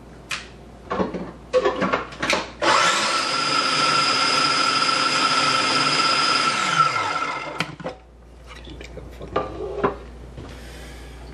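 Small countertop food processor blending a thick cottage-cheese, peanut butter and cocoa batter. The motor runs steadily for about five seconds, then winds down, falling in pitch as it stops. Plastic clicks and knocks from handling the bowl and lid come before and after it.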